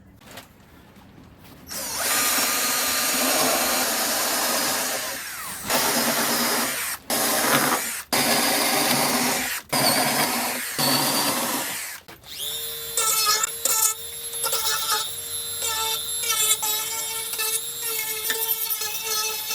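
Power tools at work: after a quiet start, several seconds of loud, harsh, noisy running in stretches with short breaks, then, from about twelve seconds in, the steady whine of a drill motor, starting and stopping in short runs with steps in pitch.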